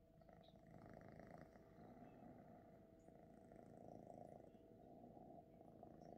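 Ragdoll kitten purring faintly and steadily while it kneads a blanket with its front paws.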